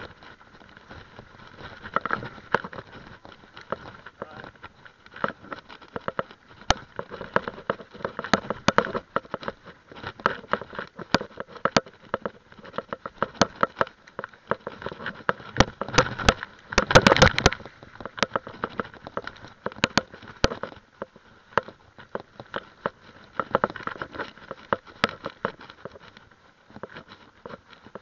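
Mountain bike ridden fast along a rough dirt trail: a steady rush of tyre noise with constant rattling and knocking as the bike jolts over bumps, heaviest about sixteen to eighteen seconds in.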